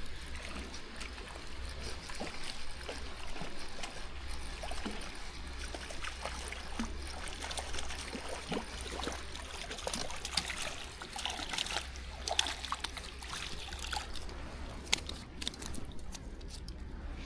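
Water splashing and trickling as a hooked trout is reeled in and landed, with scattered light clicks throughout, more of them after the middle.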